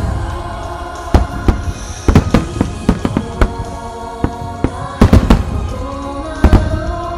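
Aerial firework shells bursting in a rapid, irregular series of booms, with a dense cluster about five seconds in, over music playing.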